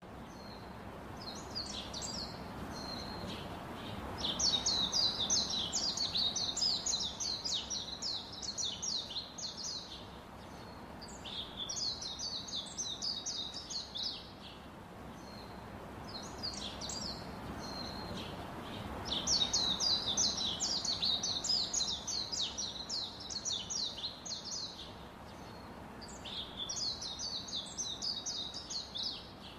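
Young poultry chicks peeping: rapid high-pitched peeps, several a second, in bouts of a few seconds with pauses between, over a steady low background hiss.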